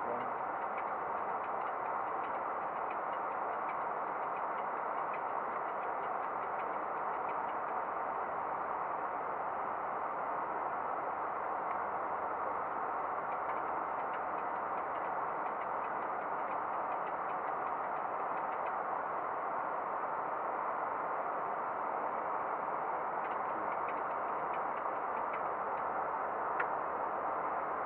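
Steady, even hiss of a Boeing 737-800 flight deck in flight, with faint scattered ticks and one sharp click near the end.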